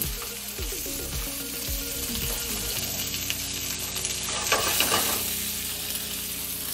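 Lamb rib chops searing in hot olive oil in a frying pan with sliced red onion and garlic: a steady sizzle. A few clicks of metal tongs against the pan come about four and a half to five seconds in as the chops are moved.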